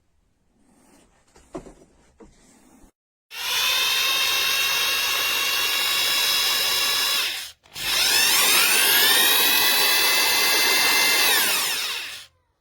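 Bosch GBH 2-21 SDS-plus rotary hammer running twice, about four seconds each, with a short break between. The second run speeds up at the start and winds down near the end. A few faint knocks come before the first run.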